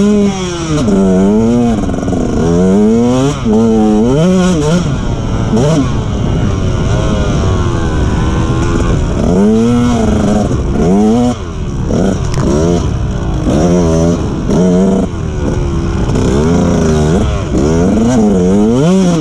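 KTM two-stroke motocross bike's engine revving hard, its pitch climbing and dropping back again and again as the rider works the throttle and gears, with wind rush on the helmet camera.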